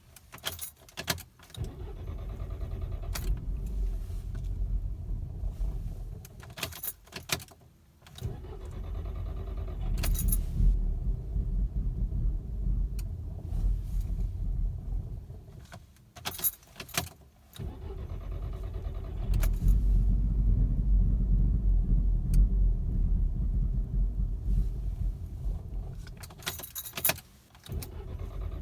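Volkswagen Mk6 GTI's 2.0 TSI turbo four-cylinder restarted hot, idling roughly and dying away, then restarted several times, with clicks and rattles at each restart. This is a hot-restart rough idle and stall whose cause the owner cannot find.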